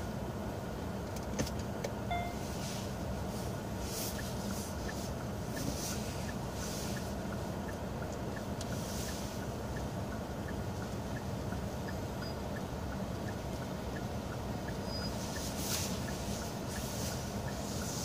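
Kia K9 running at idle, with the hazard flasher ticking evenly about three times a second, switched on automatically by shifting into reverse.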